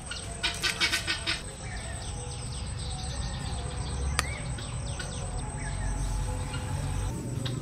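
Insects chirping: a quick run of ticks for the first second or so, then a faint steady insect hum with a thin high tone. A single short bird chirp about four seconds in.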